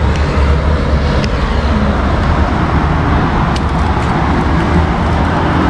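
Kawasaki Ninja 400's parallel-twin engine idling steadily, with a few light clicks and jingles from the ignition key about two-thirds of the way in.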